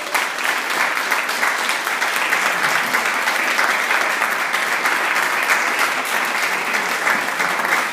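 Audience applauding, setting in abruptly and keeping up steadily.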